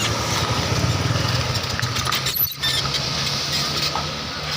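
Bus diesel engine running, a steady low rumble that briefly drops about two and a half seconds in.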